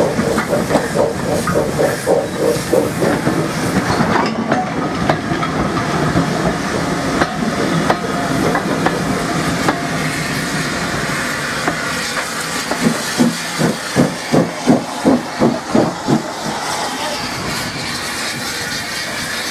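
Saddle-tank steam locomotives working slowly, with steam exhaust chuffs of about three a second near the start and a stronger run of them in the middle, over the rumble of a coach rolling past. A steady hiss of steam follows near the end.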